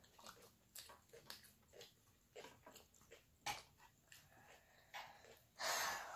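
Quiet eating sounds: chewing, mouth clicks and a fork picking through salad in a plastic bowl, with a louder crunch lasting about half a second near the end.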